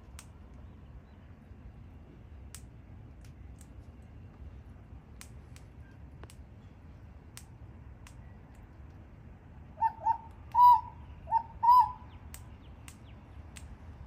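Australian king parrot giving a quick run of about five short, pitched calls about ten seconds in, with scattered faint clicks before it.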